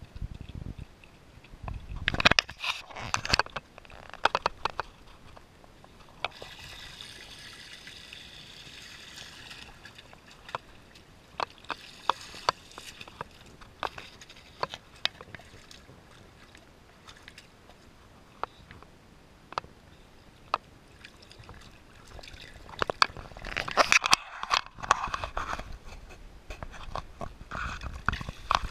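Boxer puppy wading in a shallow plastic kiddie pool, its legs splashing and sloshing the water. The splashing comes in spells about two seconds in and again near the end, with soft sloshing and scattered small clicks in between.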